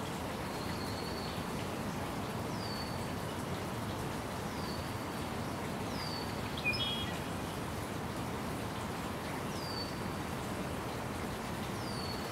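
A bird repeating a short whistled call, each sliding down in pitch and then held briefly, about six times, with a brief louder chirp about two-thirds of the way through. A steady hiss of background noise runs underneath.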